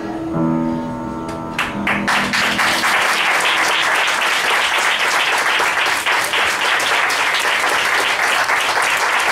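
A piano's last chord rings out, then audience applause starts about two seconds in and continues, steady and dense.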